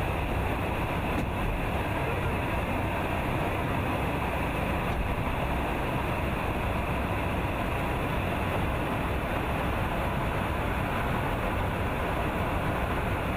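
Steady rushing noise of airflow and engines, heard inside a KC-135 Stratotanker's boom operator pod in flight during aerial refuelling.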